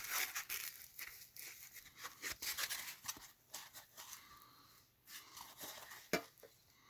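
Handling noise: light clicks, taps and rustling as a diecast metal-and-plastic model is turned and fiddled with up close, with one sharper click about six seconds in.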